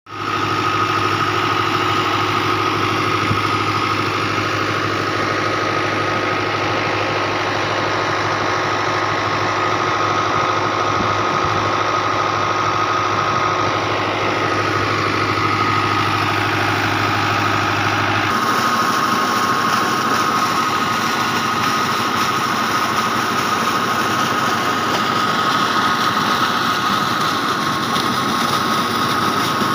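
Tractor engine running steadily, driving a tubewell water pump. About two-thirds of the way through, the low engine hum drops back and a steady rush of water gushing from the pump outlet takes over.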